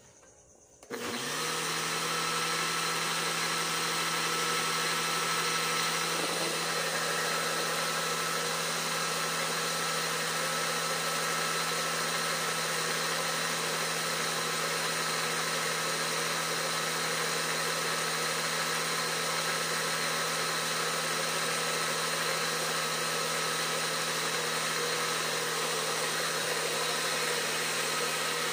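Imarflex Multi-Blender motor running steadily with a steady hum, whipping a liquid raw egg mixture to a foam in its small jar; it switches on about a second in.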